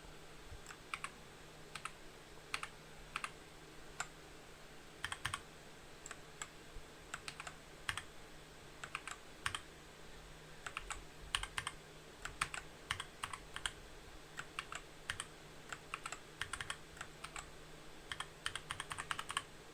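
Keys being pressed on a Dark Project KD87A mechanical keyboard with optical Gateron Brown switches: scattered single keystrokes and short quick runs of presses, coming more often in the second half.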